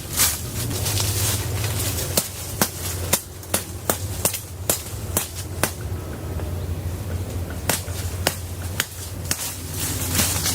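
A series of sharp knocks, about two a second, pausing for a couple of seconds in the middle, over a steady low rumble.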